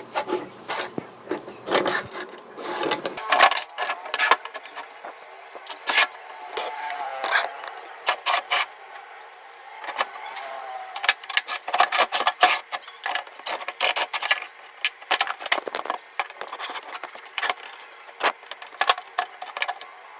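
Irregular metallic clinks, knocks and rattles of hand tools and parts as a cast iron cross slide vise is taken apart, with now and then a short ringing tone.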